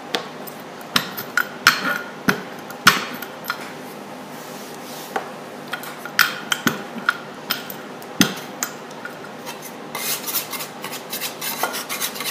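Wooden rolling pin with rubber thickness bands rolling sugar cookie dough on a floured wooden table, with irregular knocks and clacks as it is pushed and lifted. From about ten seconds in, a metal bench scraper scrapes along the wood under the dough to loosen it.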